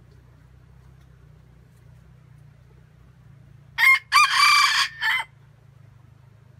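Red junglefowl rooster crowing once, about four seconds in: a short, clipped crow in three parts, a brief opening note, a longer middle note and a short closing note.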